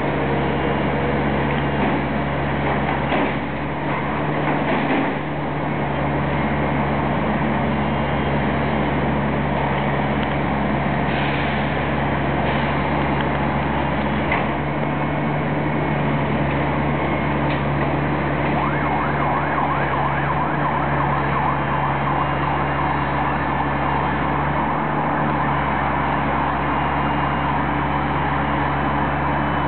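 Demolition excavator with a grab attachment, its diesel engine running steadily, with a few short knocks scattered through.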